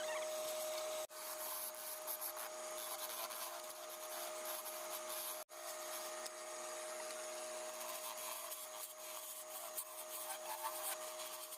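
A tool scraping and rasping on wood over a steady machine hum, the sound dropping out for an instant twice.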